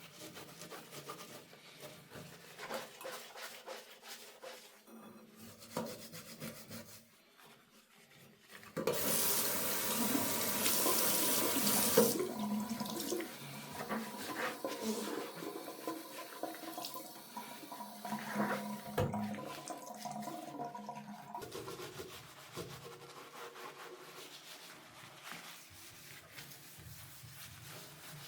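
Faint scrubbing, then a tap turned on so that water runs loudly into a bathroom sink from about a third of the way in. The flow weakens after a few seconds into splashing and rinsing sounds that die down over the last quarter.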